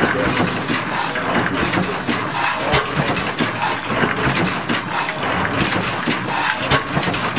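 An engine running steadily, with a repeating beat in its sound.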